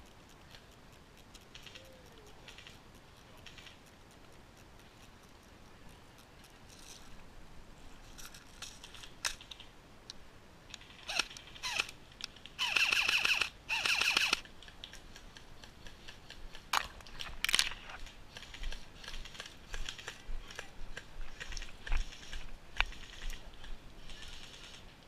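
Airsoft electric gun firing two short rapid bursts about halfway through, a fast mechanical clatter of shots. It is quiet before, and scattered single sharp clicks and snaps follow.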